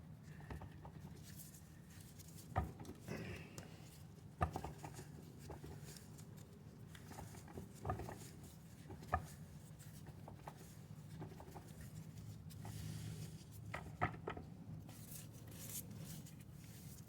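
Faint, scattered clicks and knocks of a torque converter being turned by hand as its drive keys are worked into the transmission's pump drive to seat it, over a low steady hum.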